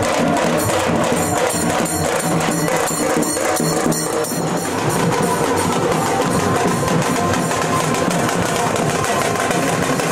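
Drums and other percussion playing a steady, dense rhythm, with music underneath.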